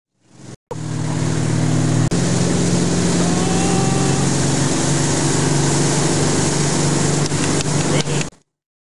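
Tow boat's engine running steadily at speed under a loud rush of water. The sound starts and stops abruptly, with a click about two seconds in.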